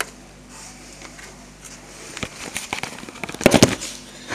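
Camera handling noise: scattered clicks and knocks as the camera is moved and set down on a desk, with a loud cluster of knocks about three and a half seconds in.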